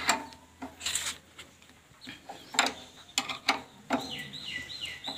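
Scattered metal clicks and clinks of a steel ring spanner knocking against the rice mill's steel roller housing. From about four seconds in, a bird calls in quick repeated chirps.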